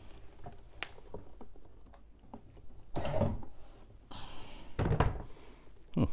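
Carpet being handled while it is lifted back to check the padding: a few dull thumps, the two heaviest about three and five seconds in, with a brief scraping rustle just before the second.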